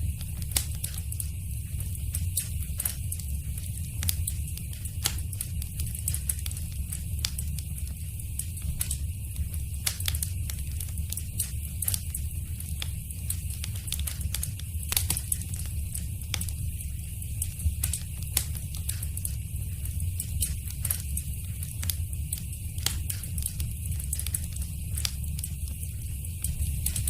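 Wood fire burning in a fireplace, crackling with frequent sharp pops and snaps over a steady low rumble.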